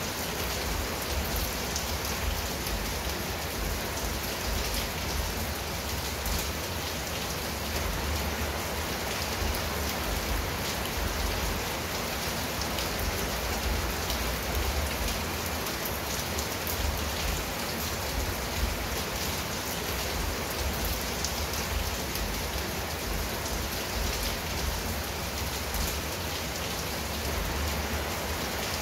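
Steady rain falling on a clay-tile roof and leafy shrubs, a dense, even patter of drops, with a low, uneven rumble underneath.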